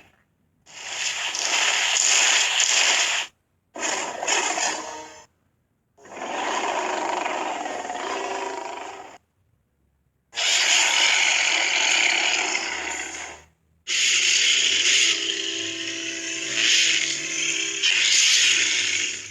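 A string of five separate harsh, raspy dinosaur-creature roars and screeches, each one to five seconds long, cut off sharply with silence between them. The last, longest one carries a faint pitched growl beneath the rasp.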